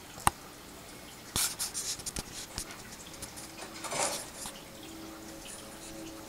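Two corgis scuffling in play on carpet: a sharp click just after the start, then a run of scratchy clicks and scuffs about a second and a half in, and another scuffle near four seconds.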